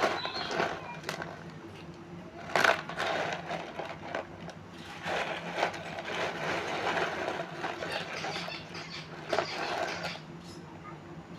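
Small stones being handled, clicking and scraping against one another in irregular bursts, with sharper clicks about two and a half seconds in and again near nine and a half seconds.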